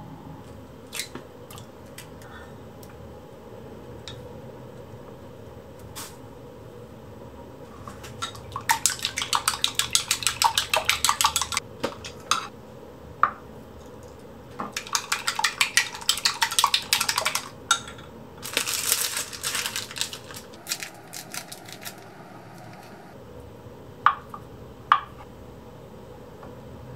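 Eggs being beaten with a spatula in a glass measuring cup: rapid clinking strokes in two runs of about three seconds each, then a shorter, busier run. Near the end, two sharp knocks of a knife on a wooden cutting board.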